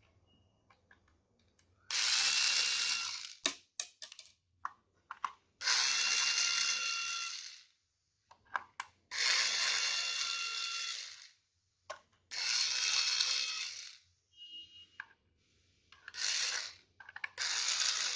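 Small electric screwdriver run in six bursts, most about two seconds long, backing the screws out of a plastic game controller casing, with small clicks between the bursts.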